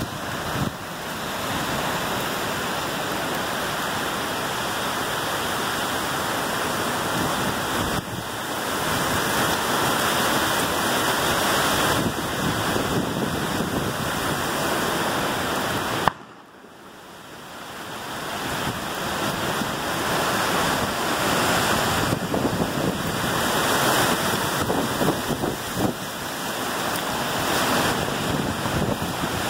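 Heavy rain and gusting wind of a severe thunderstorm: a steady rushing noise that swells and eases, with wind buffeting the microphone. About halfway through, a sharp click, then the noise drops suddenly and builds back up over a few seconds.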